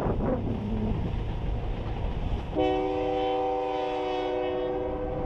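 Passenger train running in the gorge below, then its locomotive's air horn sounds one long blast about halfway through, a chord of several steady notes lasting about two and a half seconds. A rumble of wind and train noise comes before the horn.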